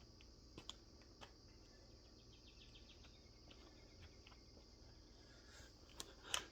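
Faint steady chirring of crickets in near silence, with a few small clicks and two sharp knocks near the end.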